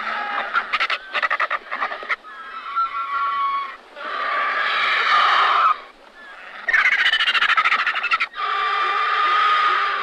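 Griffon vulture calls: about five rough, hoarse bouts with short breaks between. Some come as quick rattling pulses, others are held for a second or more.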